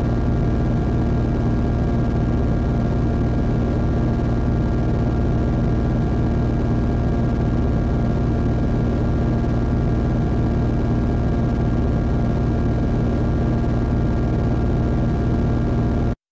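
Dense, unchanging synthesizer drone: a heavy low rumble with several steady held tones above it, cutting off abruptly near the end as the track ends.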